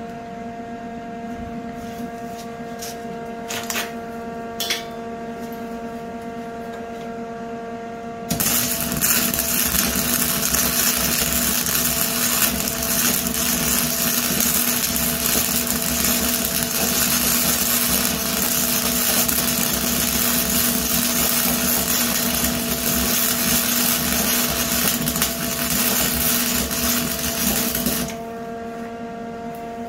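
Lincoln Electric wire-feed welder arc crackling steadily as a bead is run on the shopping cart's steel tubing, starting about eight seconds in, lasting about twenty seconds and cutting off abruptly near the end. Before and after the weld, a steady hum with a couple of small clicks.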